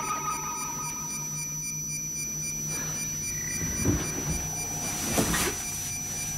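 Electronic science-fiction sound effect: steady pure tones over a low hum, with a higher tone fading out in the first second or two. Two dull thumps follow, one about four seconds in and one about five, with a brief hiss at the second.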